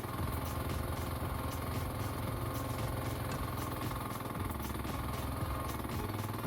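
NM-E08 mini excavator's engine running steadily.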